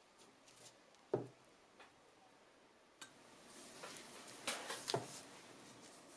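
Quiet taps and clicks as a knife with a resin-coated colored-pencil handle is handled on a paper-covered tabletop. One sharper knock comes about a second in, and a cluster of clicks and knocks comes near the end.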